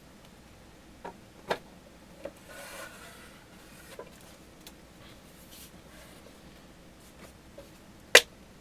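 Hard plastic knocks and a short scrape as a monitor's stand is worked into its plastic base, ending in one loud, sharp click near the end as it snaps into place.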